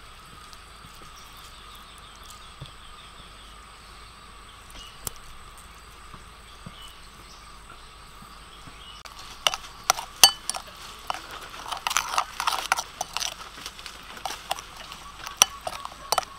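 A metal spoon clinking and scraping against a ceramic bowl while stirring a sauce. It starts about halfway through with sharp, irregular clinks. Before that there is only a faint, steady background hum.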